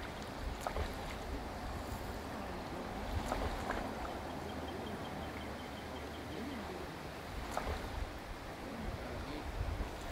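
Shallow stream water flowing steadily, an even rushing hiss, with a few faint ticks and a faint rapid high-pitched ticking in the middle.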